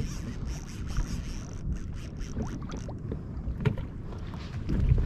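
Wind buffeting the microphone and water sloshing around a kayak at sea, with a couple of light knocks against the hull.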